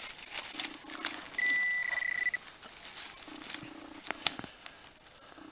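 Hands and a digging tool scraping and rustling through loose soil and dry leaves, with a steady electronic beep from the metal detecting gear lasting about a second near the start. A few short low hums recur, and a sharp click sounds about four seconds in.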